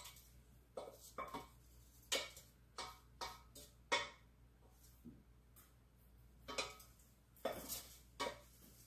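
A wooden spoon knocking and scraping against a stainless steel saucepan as sautéed vegetables are scraped out into a plastic bowl: about ten irregular, sharp knocks, each ringing briefly.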